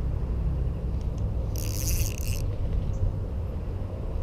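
Spinning reel's drag buzzing for about a second as a hooked fish pulls line off against the loosely set drag, over a steady low rumble.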